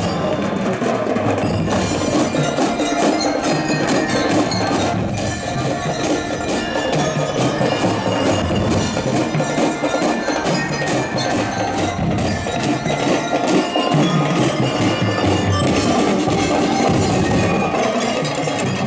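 Drum and lyre band playing: bell lyres ring out a melody over rapid, continuous drum strikes.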